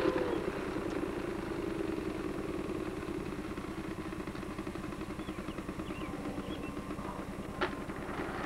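An engine running steadily, a continuous drone with a fine even pulse, with a single sharp click about seven and a half seconds in.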